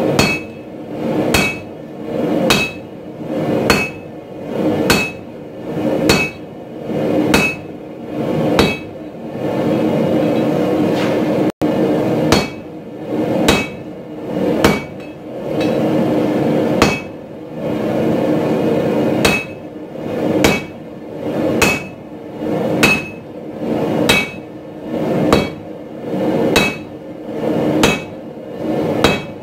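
Hand hammer striking red-hot steel on an anvil, forging a cross pein hammer head: sharp, ringing blows at an even pace of about one every second and a quarter, with a pause of a few seconds before the blows resume.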